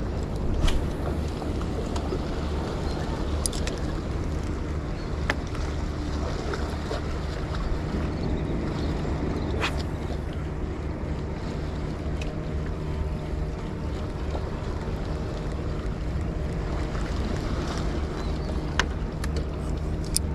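Outrigger fishing boat's motor running steadily at low speed, with wind on the microphone and a few short, sharp clicks.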